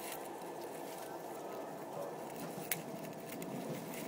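Steady indistinct background hubbub, with a single sharp click about two and a half seconds in.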